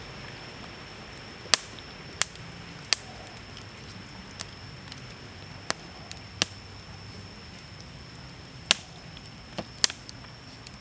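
Hands handling raw chicken wings over a wicker basket: about nine sharp, irregular clicks and crackles, the loudest about a second and a half in and near the end, over a faint steady high-pitched tone.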